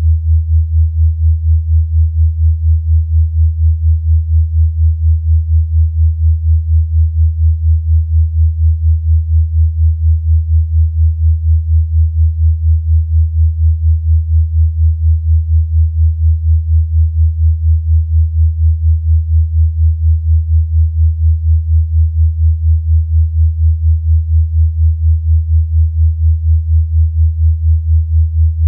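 Electronically generated low sine tone, a wellness 'healing frequency', held steady and pulsing evenly in loudness about three times a second.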